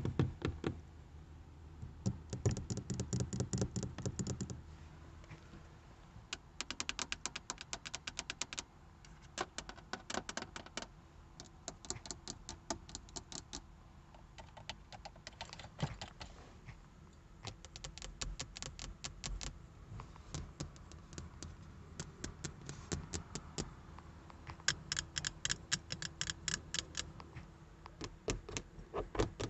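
Long fingernails tapping quickly on hard plastic car interior trim (textured door panel, air-vent controls, overhead dome-light console). The clicks come in fast bursts a few seconds long, with short pauses between.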